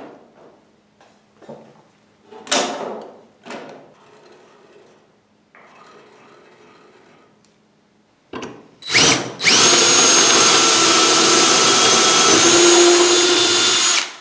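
A few sharp knocks of aluminum parts being handled and fitted. About nine seconds in, an electric drill starts and runs steadily for about five seconds, boring holes into a solid aluminum cleat-mount block.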